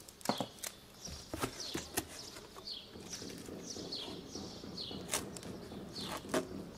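Cardboard and tape being handled, with scattered sharp clicks and rustling. Behind it a bird calls a quick series of short falling chirps.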